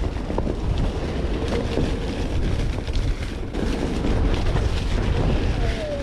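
Wind buffeting the microphone over the rumble of a Onewheel GT's tyre rolling on a dirt trail, with a faint electric hub-motor whine that rises slightly near the end.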